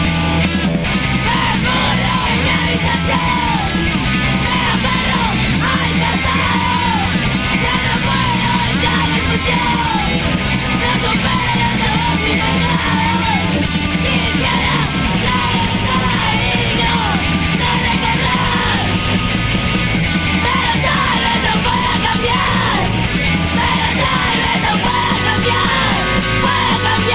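Loud punk rock song: a full band plays under a woman's voice shouting the lead vocal, with short swooping phrases throughout.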